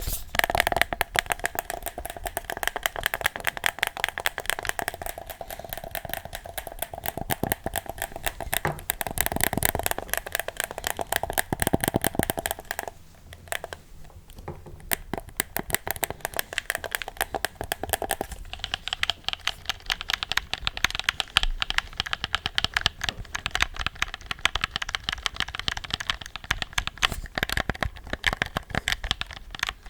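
Close-miked ASMR trigger sounds: a dense, rapid run of small clicks and crackles, dipping briefly about halfway through.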